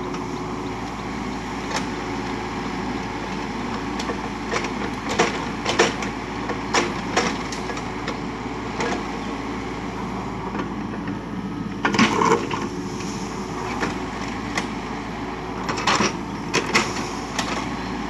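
Kubota U35 mini excavator's diesel engine running steadily, with irregular sharp cracks and snaps of brush and branches breaking as the machine clears scrub.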